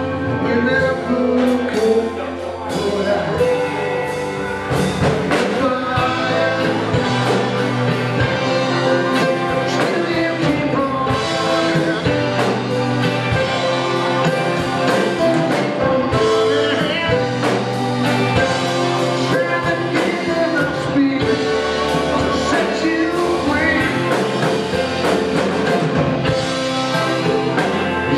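Live rock band playing amplified: electric guitars, keyboard and drum kit, with singing.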